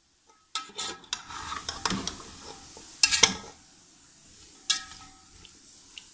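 A metal slotted spatula stirring and scraping cut potatoes in oily masala in a cooking pot, with separate scrapes and clinks against the pot, the loudest a little past three seconds in, over a faint sizzle. The potatoes are being fried in the spice mix.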